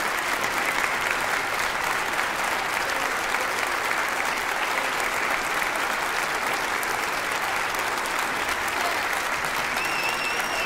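Concert-hall audience applauding steadily, with a whistle rising near the end.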